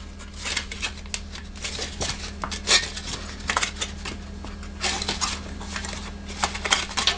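Thin aluminum foil pan being bent and folded by hand: irregular crinkling and crackling of the foil as its edges are worked up.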